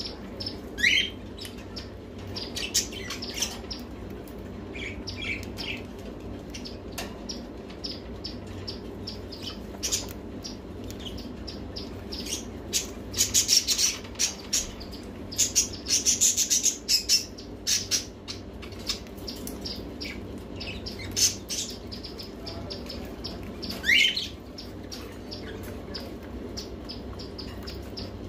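Pet ringneck parakeet calling in its cage: a sharp rising chirp about a second in, a rapid run of high chirps and squawks in the middle, and another rising chirp near the end, with scattered small clicks between.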